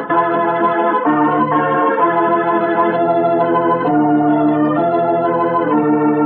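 Organ music bridge between scenes of a radio drama: sustained organ chords, each held for a second or so before moving to the next.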